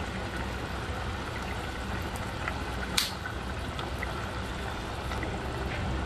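Pork afritada's tomato sauce bubbling at a simmer in a pan, with small pops throughout and a single sharp click about halfway through.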